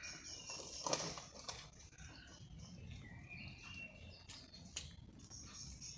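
Light rain pattering on an umbrella, with scattered drop taps, the loudest about a second in.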